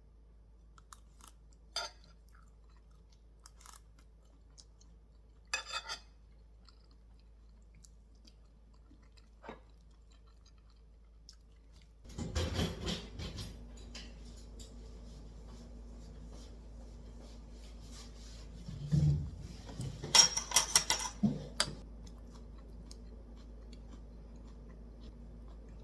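Kitchen handling sounds: a few light clicks and taps, then from about halfway a stretch of clattering with dishes and utensils, the sharpest clinks a little before the end. A steady low hum comes on at the same point and keeps going.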